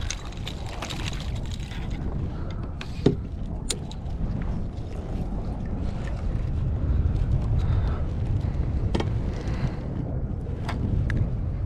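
Wind buffeting the microphone as a steady low rumble, with a few short sharp clicks and knocks scattered through it.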